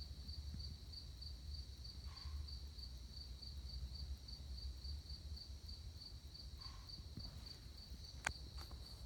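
Night insects chirping steadily in an even, high-pitched pulse about three times a second, over a low rumble. Two faint, brief sounds come about two and seven seconds in, and a single sharp click comes near the end.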